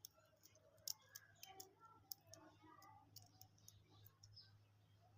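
Quiet, scattered small clicks and ticks of plastic candy packaging being handled, about a dozen, irregularly spaced, over a low steady hum.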